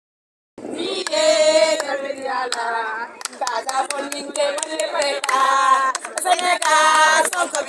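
Voices singing together, with sharp handclaps throughout; it starts about half a second in.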